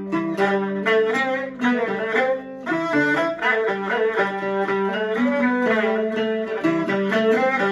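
Peking opera orchestra playing a brisk instrumental passage of the aria's accompaniment, led by bowed Chinese fiddles of the jinghu type with plucked strings beneath.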